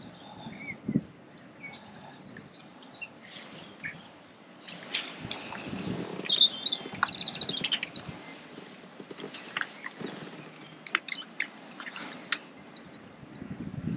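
Small birds singing and chirping, with a quick trill in the middle, over a low outdoor background. A few sharp clicks and knocks sound close by in the second half.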